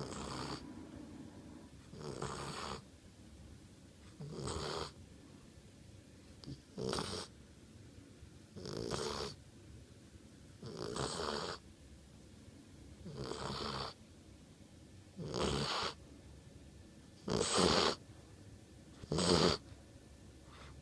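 American bulldog snoring, a rough snore about every two seconds, ten in all, with the last two the loudest.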